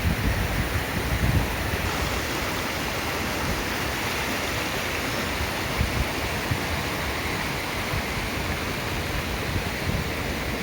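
Stream water rushing steadily over stones.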